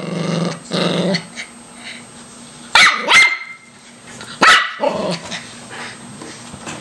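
Small spitz-type dog growling low at first, then giving three sharp barks: two in quick succession, then one more about a second later. They are warning barks at a puppy trying to get up on the furniture.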